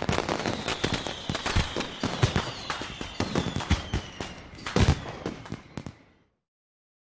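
Fireworks crackling and banging in a rapid, uneven string, with a thin whistle sliding slowly down in pitch through it; the crackling fades out about six seconds in.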